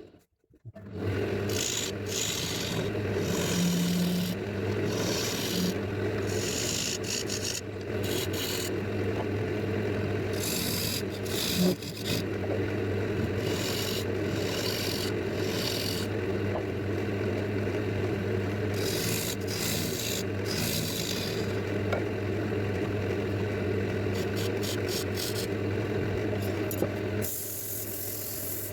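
Wood lathe running with a steady motor hum while a tool is worked against the spinning walnut, giving repeated rasping, scraping passes. The sound cuts in just after a brief silent gap at the start.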